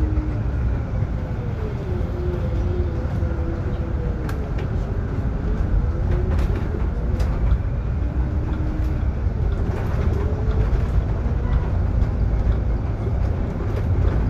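Solaris Urbino 18 articulated bus on the move, a steady low rumble of drivetrain and road. Over it the articulation joint squeaks in drawn-out tones that rise and fall every second or two, with light rattling clicks.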